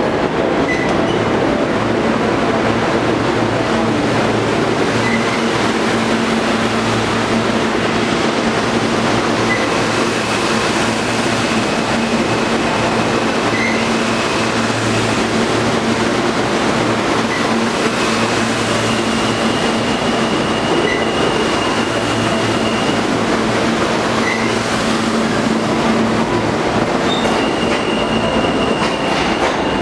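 New York City Subway R160B train running along the platform: a loud, steady rumble of wheels on rail with a low hum and a thin, high wheel squeal that comes and goes.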